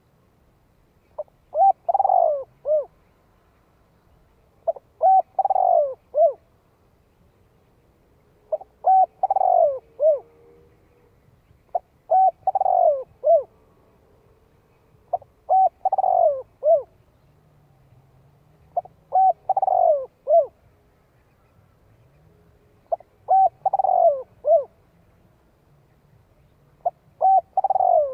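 Spotted dove calling: the same cooing phrase repeated about every three and a half to four seconds. Each phrase is a few short notes around one longer, falling coo, ending on a short final note.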